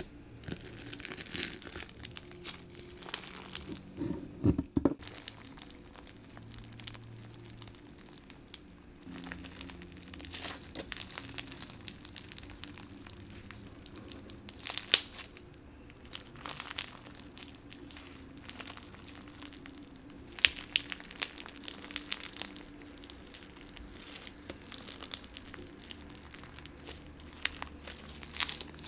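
Crunchy slime packed with sequins, glitter and clear plastic filler pellets being squished and stretched by hand, giving irregular crackling and crunching with a few louder pops.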